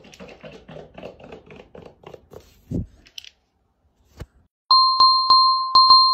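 Faint quick ticking and a short thump, then a brief silence. Near the end a bright, bell-like music track starts loudly, its notes struck in quick succession.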